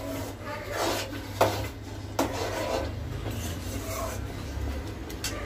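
Metal spoon stirring vermicelli milk pudding in a steel pan, scraping along the bottom and sides, with a couple of sharp knocks against the pan about one and a half and two seconds in.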